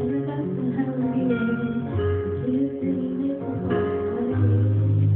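Live music led by guitar, with a low note held loud from about four seconds in.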